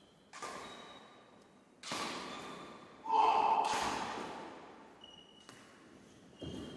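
Badminton doubles rally: sharp racket-on-shuttlecock hits and thuds of players' feet on the wooden court, four separate strikes with a long echo in the large hall. The loudest comes about three seconds in.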